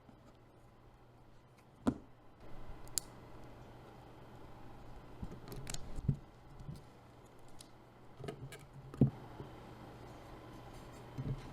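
Scattered sharp clicks and light knocks, irregularly spaced with gaps of a second or more, from keyboard parts being handled and fitted during assembly of a custom mechanical keyboard. A faint steady low hum sits underneath.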